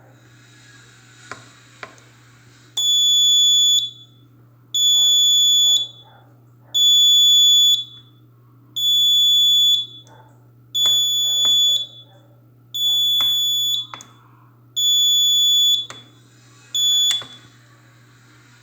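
Fire alarm sounding a loud, high-pitched beep about a second long, once every two seconds, eight times in a row. The last beep is cut short. A few clicks come just before the first beep.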